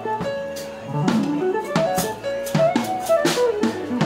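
Hollow-body electric guitar playing runs of single notes that step up and down, jazz-style, over drums struck every half second or so.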